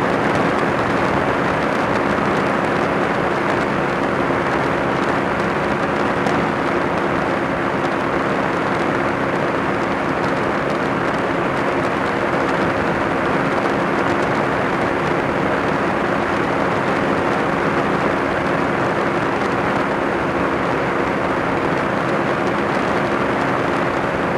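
Kolb ultralight's engine and pusher propeller running at a steady cruise setting, an even drone with no change in pitch, mixed with rushing airflow over the wing-mounted camera.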